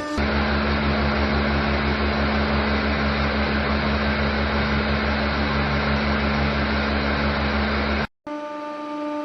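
Hydraulic press's motor and pump running with a steady low hum and hiss. It cuts off abruptly about eight seconds in, followed by a different, steadier whine with a few fixed tones.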